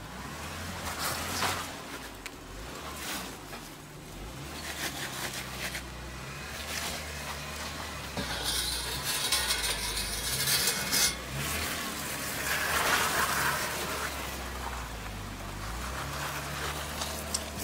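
Jeep Wrangler's engine running at low revs under load as it crawls over boulders, with tyres grinding on rock and loose dirt and stones crunching and clinking underneath. A loud hiss rises about halfway through and stops abruptly a few seconds later.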